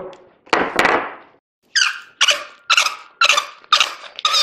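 Brinyte S18 aluminium flashlight being unscrewed at its threaded joint in short twists of the wrist. After a brief handling noise near the start, the parts squeak with each twist, about two squeaks a second; the head is screwed on tight.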